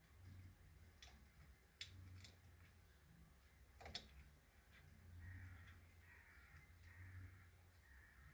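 Near silence with a few faint small clicks of plastic parts being handled, and a faint drawn-out sound in the second half.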